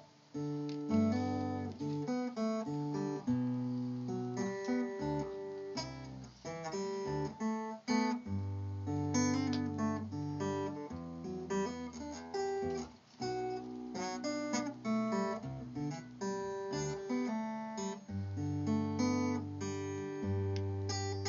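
Solo acoustic guitar: a melody over ringing bass notes, mixed with strummed chords, after a brief pause right at the start.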